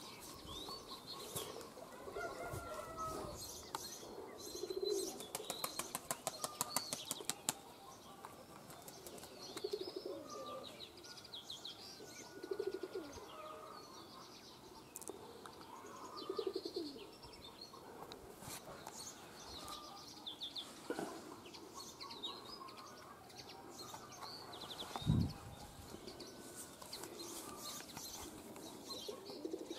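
Pigeons cooing softly, with small birds chirping. A quick run of wing flapping comes about six seconds in, and one dull low thump comes late on.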